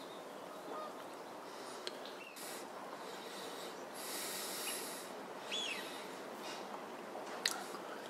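Scattered short calls of distant waterbirds over a steady outdoor hiss, one a clear rising-then-falling chirp about five and a half seconds in.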